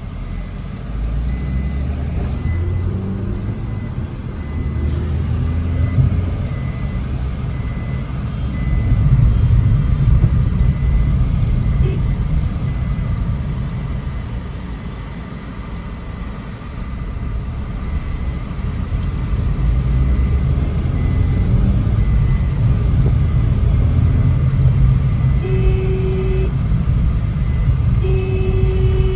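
Vehicle engine and road rumble while driving, swelling and easing, with two short steady beeps near the end.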